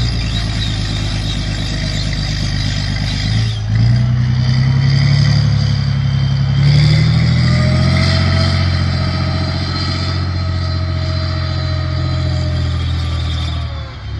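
Challenger Armoured Repair and Recovery Vehicle's V12 diesel engine running under load as the tracked vehicle drives off. The engine note dips briefly and then rises about four seconds in, and climbs again a few seconds later, with a steady whine above it.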